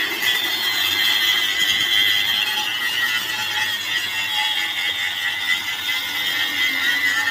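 Stick-welding arc burning steadily, a continuous hissing crackle.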